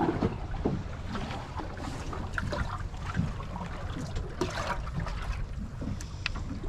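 Water trickling and dripping off a landing net holding a freshly landed cuttlefish, with scattered small knocks and splashes over a steady low rumble of wind and sea around the boat.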